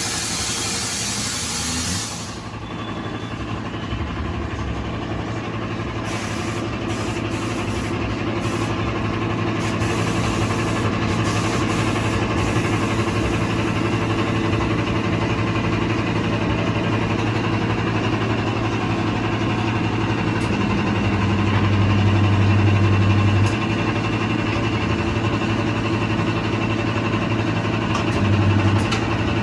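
A vehicle engine idling steadily, after a hiss in the first two seconds. The engine note swells louder for about two seconds a little after twenty seconds in, and again briefly near the end.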